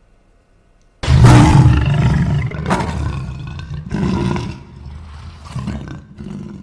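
Lion roar sound effect: one loud roar starting suddenly about a second in, followed by several weaker roars that fade away.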